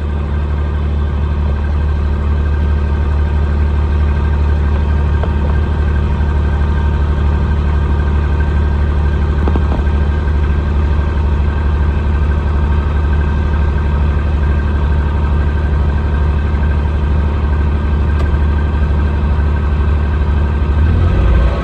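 A diesel farm vehicle's engine running steadily under a light load, heard close from the feed box as it pulls along the feed bunk, with the pitch rising slightly near the end.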